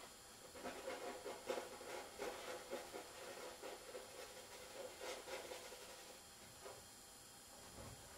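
Faint scratching and dabbing of a painting tool worked across a canvas in a quick run of short strokes. The strokes die away about six seconds in.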